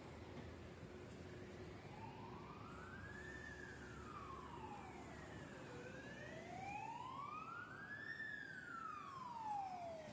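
Fire + Rescue NSW fire engine siren in a slow wail, gliding up and down in pitch about every five seconds and growing louder as the truck approaches.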